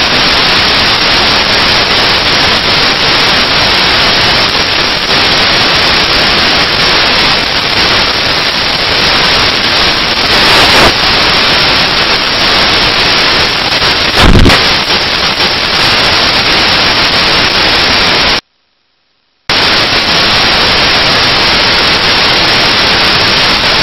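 Loud, steady static hiss like white noise in place of the soundtrack, with a brief louder crackle about halfway through and a sudden drop to dead silence for about a second two-thirds of the way in.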